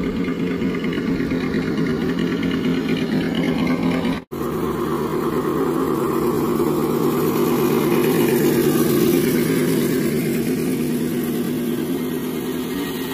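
Motor of a radio-controlled scale off-road car running steadily, its pitch rising and falling a little. The sound cuts out for an instant about four seconds in.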